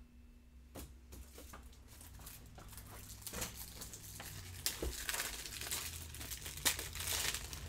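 Plastic crinkling and rustling with many light clicks and knocks, growing louder: someone rummaging through plastic card supplies for a top loader.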